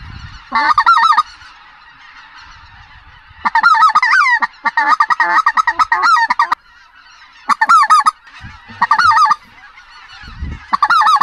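Snow geese honking: loud bouts of quick, high, yelping calls, the longest about three seconds, over the steady chorus of a large circling flock.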